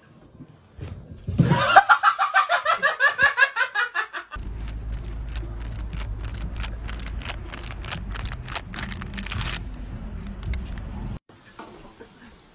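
A person laughing in a quick run of pulses for about three seconds. Then a steady low rumble dotted with rapid sharp clicks for about seven seconds, which cuts off suddenly.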